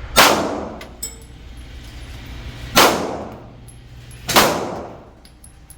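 Three single pistol shots from a Smith & Wesson M&P 2.0, the second about two and a half seconds after the first and the third about a second and a half later. Each shot has a sharp crack and a reverberating tail that fades over about a second.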